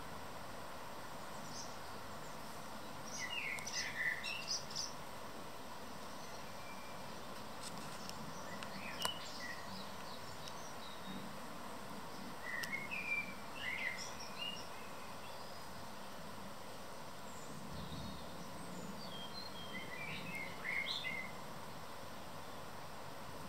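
Small birds chirping in short clusters every few seconds over a steady outdoor background hiss.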